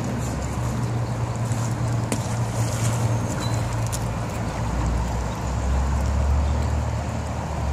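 Steady rush of a fast-flowing river, with a strong low rumble underneath that drops lower about five seconds in.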